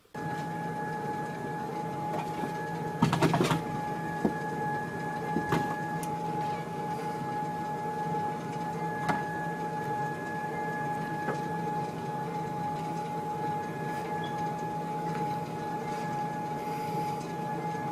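Sole treadmill running: a steady motor hum with a high whine over it. A brief clatter of knocks about three seconds in, with a few single knocks after.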